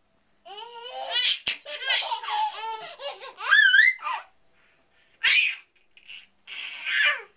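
Twin babies laughing and squealing in quick bursts of high-pitched giggles, with a long rising squeal just before the middle, then shorter giggles after a pause. Two sharp taps cut through, one early and one after the pause.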